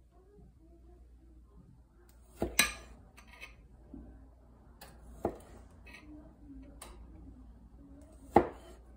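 Chef's knife slicing through grape tomatoes and knocking on a plastic cutting board: a few sharp, separate knocks a couple of seconds apart, with a double knock about two and a half seconds in.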